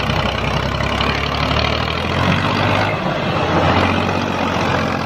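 Massey Ferguson 135 tractor's three-cylinder diesel engine running steadily.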